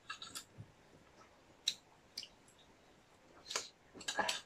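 A few scattered soft clicks and light taps of a spoon against a china plate, about half a dozen over the few seconds.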